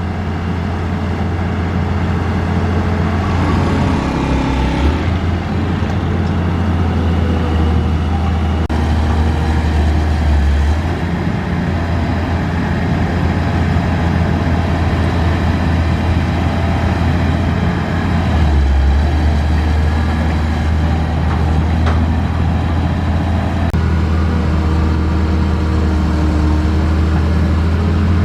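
Cat 320C excavator's diesel engine running steadily under working load, its low drone shifting in pitch a few times as the hydraulics take and release load.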